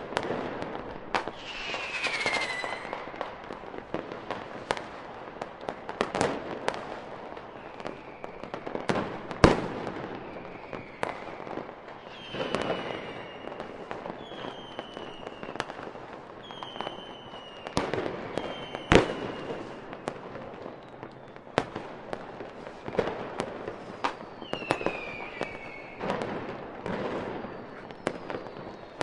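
A fireworks display: a run of sharp bangs from bursting shells, the loudest two about nine and nineteen seconds in, mixed with several whistles that fall in pitch.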